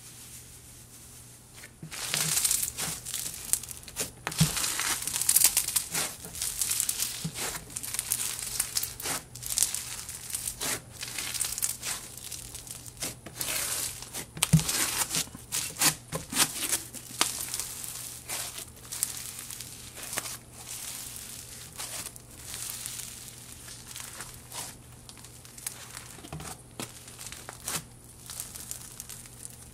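Microfloam slime, a glue slime packed with tiny foam beads, crunching and crackling as hands knead and press it. It starts about two seconds in, comes thick at first and thins out in the second half.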